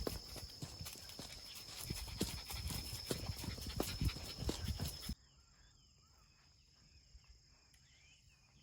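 Irregular scuffs and knocks of a walk with a Shiba Inu, under a steady high whine. About five seconds in it cuts off suddenly to a quiet background with faint chirps.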